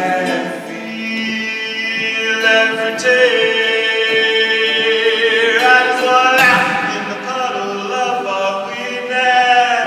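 Singing voice holding long notes in a song, one note in the middle held for about two and a half seconds.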